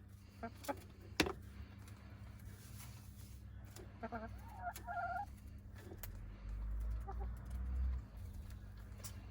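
Hens clucking in a short run of calls about four seconds in. A sharp knock comes about a second in, and a low rumble near the end.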